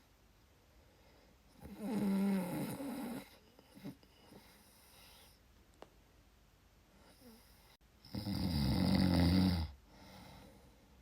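A person snoring: two loud snores, about two seconds and about eight seconds in, each followed by a quieter breath.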